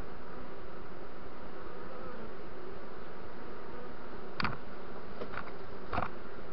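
A honeybee swarm buzzing steadily as the bees crawl at a hive entrance board. About four and a half seconds in come three short wooden knocks, as the hive is set down against the board.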